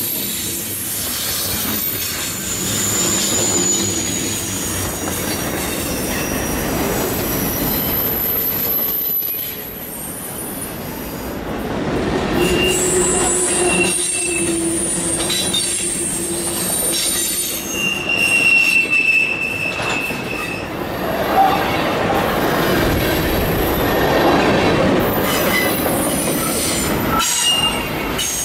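Freight cars of CN train M356 rolling past, their steel wheels squealing against the rails on a sharp curve: many high-pitched squeals that waver, come and go and overlap over the steady rumble of the wheels. The squeal is the sign of the wheels being forced round a tight curve.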